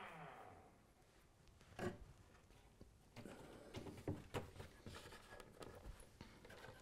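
A power drill spinning down in the first half-second. Then faint scattered clicks and rubbing as a model railway set of points (a track turnout), with wires attached, is handled and laid flat onto the baseboard.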